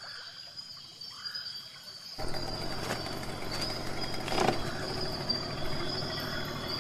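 Steady high-pitched insect drone, with a few short rising-and-falling bird chirps in the first second or so. About two seconds in, a louder, even rushing noise sets in under the drone.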